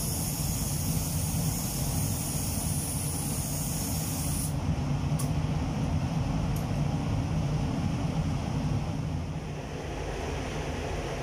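A paint spray gun hisses as it sprays clear coat, then cuts off abruptly about four and a half seconds in. Under it, the spray booth's extraction fans rumble steadily.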